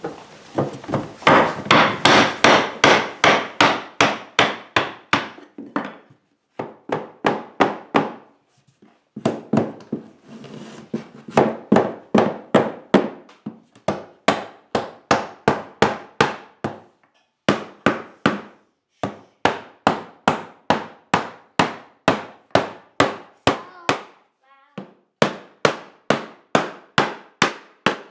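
A hammer striking wood in steady runs of about two to three blows a second, with short pauses between runs: new oak floorboards being knocked into place in a patched floor.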